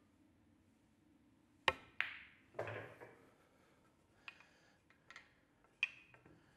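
A pool shot: a sharp click of the cue tip on the cue ball about a second and a half in, a clack of ball striking ball just after, and then a duller, heavier knock. Several lighter ball clicks follow over the next few seconds.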